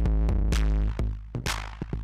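Electronic drum-machine beat with a held bass and synth part, playing through the Bass Face drive and saturation plugin. About a second in the held bass part stops, leaving sparse kick, snare and hi-hat hits.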